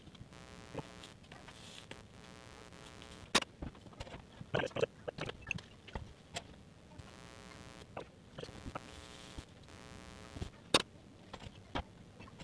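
Soldering iron working along the copper-foiled seams of a stained-glass window: flux crackling and sizzling in short bursts, with a few sharp clicks, the loudest about three and a half and eleven seconds in, over a faint steady hum.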